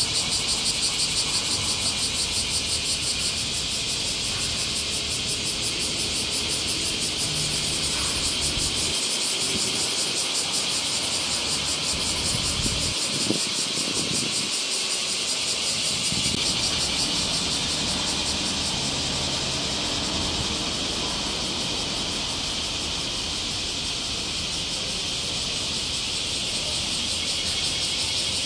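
Chorus of summer cicadas: a steady, shrill high buzz with a fast pulse, over a low background rumble.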